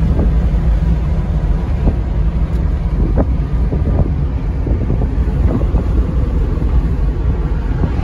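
Loud, steady wind and road rumble inside an ElectraMeccanica SOLO electric three-wheeler driving at about 38 mph, with no engine note.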